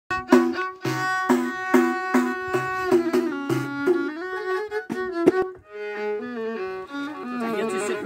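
Violin held upright on the knee in the Moroccan manner, bowing a rhythmic run of short repeated notes with sharp attacks. From about four seconds in it changes to a smoother melody with sliding, ornamented notes.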